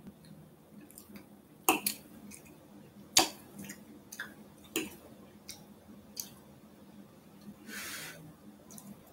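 Eating sounds: a metal fork clicking and scraping against a glass plate of cheesy rice and fish, a few sharp separate ticks with the loudest about three seconds in, with quiet chewing between and a brief hiss shortly before the end.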